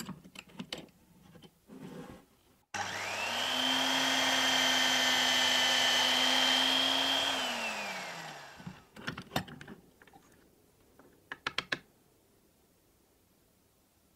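Drill press motor starting suddenly, running at a steady whine for about four seconds while a twist bit bores a hole through a small hardwood block, then winding down in pitch. Light clicks and knocks of the block being handled in a wooden vise come before and after.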